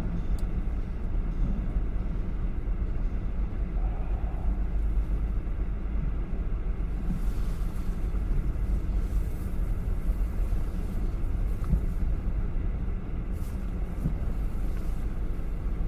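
Steady low rumble of a car ferry's engines while under way, with a faint constant hum.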